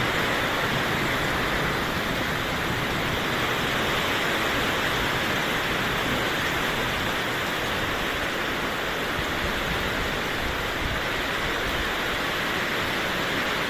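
Heavy rain pouring down, a steady, even hiss with no thunderclap.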